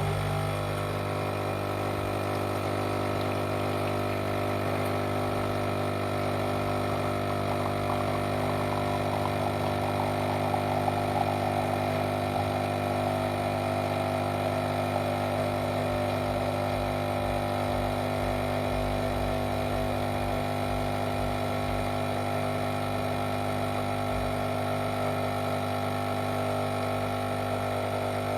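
Bean-to-cup coffee machine running with a steady mechanical hum that starts abruptly and holds level throughout.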